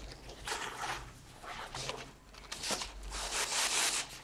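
Rustling and rubbing of a drawstring bag and the flat artwork inside it being handled and slid out, in several bursts, the longest near the end.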